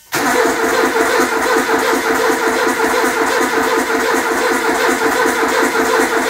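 Starter motor cranking the freshly rebuilt 2-litre turbo engine in an even, rhythmic chug that holds steady without the engine catching, on its first start attempt after the rebuild.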